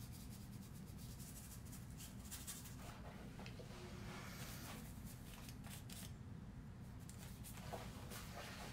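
Faint scratchy dabbing and rubbing of a paintbrush working paint onto paper, over a low steady hum.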